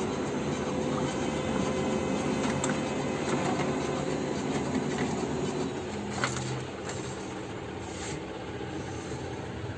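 Brother DCP-L2541DW laser printer running a copy job: the steady mechanical sound of its motor and rollers feeding the page through. About six seconds in there is a sharp click, then the running goes on more quietly as the printed page comes out.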